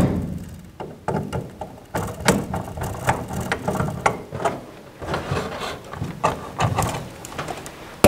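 Screwdriver tightening screw terminals on a duct smoke detector's terminal block, making a string of irregular small clicks, scrapes and taps of metal on plastic as the wire is clamped down.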